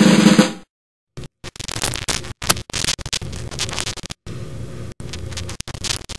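A snare drum roll that cuts off under a second in, then after a brief gap an irregular scratchy crackling noise with clicks, broken by sudden dropouts.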